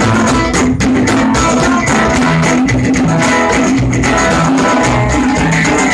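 Instrumental passage on a strummed metal-bodied resonator guitar, with an upright bass plucking low notes underneath in a steady rhythm.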